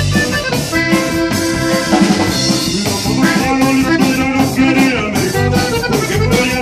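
Live Mexican band playing: accordion, electric bass guitar and drum kit, recorded loud and close.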